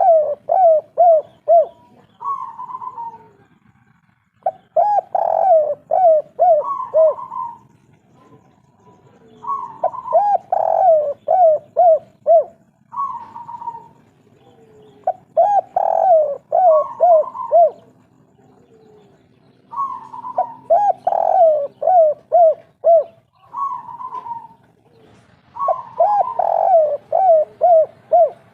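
Spotted dove (tekukur) of the 'kuk 3' song type cooing over and over: about six bouts of rhythmic coos, each a run of several quick notes, coming every four to five seconds.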